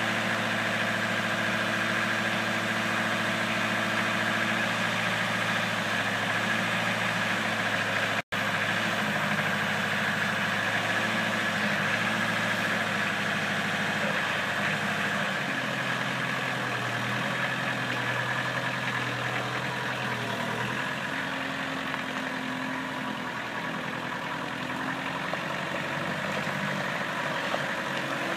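Truck-mounted forklift's engine running steadily at idle, its note shifting a little past the middle as the machine is worked. The sound cuts out for an instant about eight seconds in.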